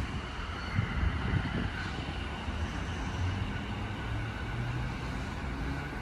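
JR East E233 series electric train pulling away from the platform and receding, its traction motors and wheels running as it gathers speed, with a faint motor whine over a low rumble.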